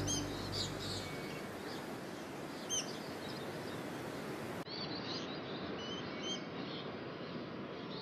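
Rainforest ambience: a steady hiss with short, high bird chirps, once near the start, once about three seconds in, and several more in the second half.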